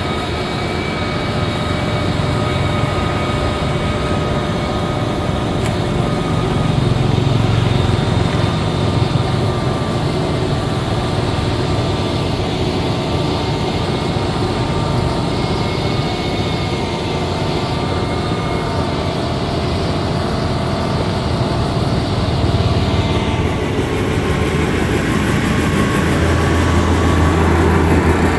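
Liugong motor grader's diesel engine running steadily at working speed. About two-thirds of the way through the high hiss above it drops away, and near the end a deeper drone comes up.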